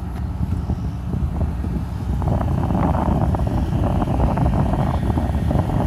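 Wind buffeting the microphone: an irregular rumbling noise that grows stronger about two seconds in.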